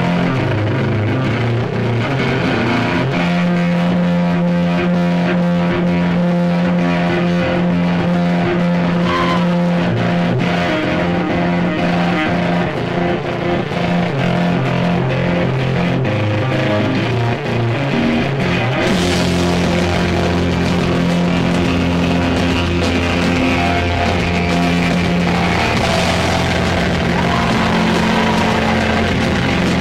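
Live heavy metal band: a heavily distorted electric guitar riffing over bass and drums. About two-thirds of the way through the sound grows fuller and brighter, with more cymbal and low end.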